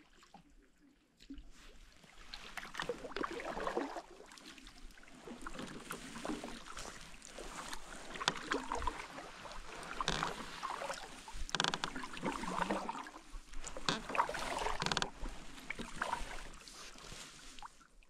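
Kayak paddling: a double-bladed paddle dipping into calm lake water and pulling through it, with splashes and drips. The strokes come in uneven swells every second or two, after a quieter first second.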